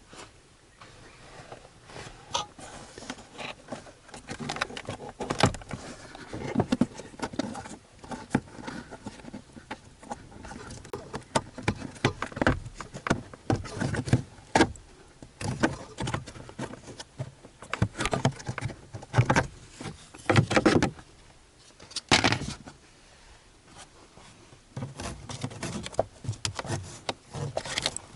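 Irregular clicks, knocks, rattles and short scrapes of hands working plastic parts behind a pickup's glove compartment to get at the cabin air filter housing.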